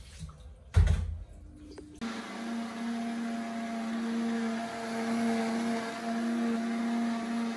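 Countertop blender motor starts about two seconds in and runs steadily, blending a liquid mix with a steady hum. A single thump comes about a second in, before the motor starts.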